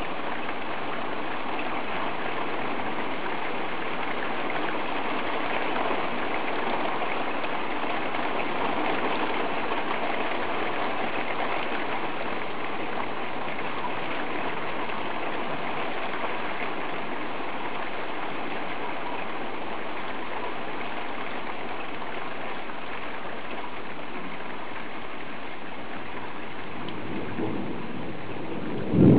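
Heavy rain falling steadily, an even hiss of downpour. Right at the very end a loud thunderclap from a lightning strike breaks in.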